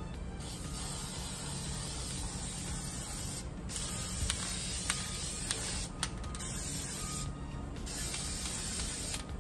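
Aerosol can of clear glaze spraying in four bursts: the first about three seconds long, then shorter ones, each ending abruptly as the nozzle is released.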